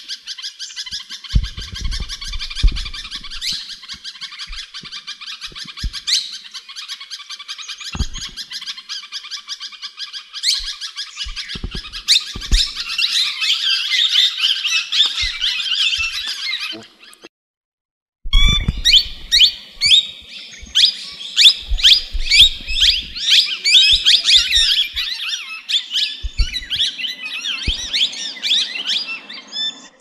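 A flock of plum-headed parakeets chattering and squawking in a dense, continuous chorus of rapid notes. The sound breaks off into silence a little past halfway, then comes back louder, with a few low knocks in between.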